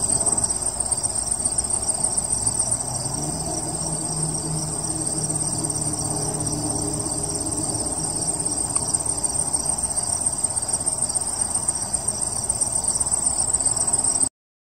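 Crickets trilling in a steady, high-pitched chorus that cuts off suddenly near the end.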